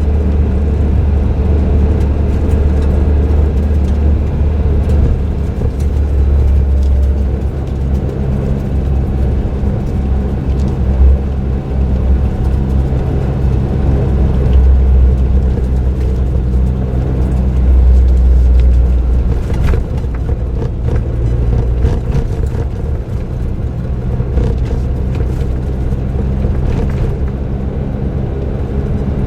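Suzuki Jimny JB23W's 660 cc turbocharged three-cylinder engine, breathing through an aftermarket muffler, running steadily on the move. Its low drone rises and falls slightly with speed under road noise, and a few light knocks come through about two-thirds of the way in.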